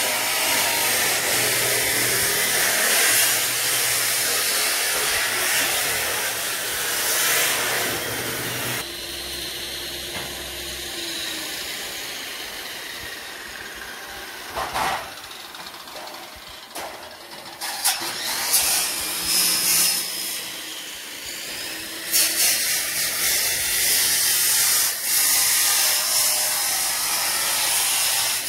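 Electric arc welding on a steel roof frame: a loud, dense hiss that runs for several seconds, drops back, then breaks off and restarts in shorter runs before running steadily again near the end.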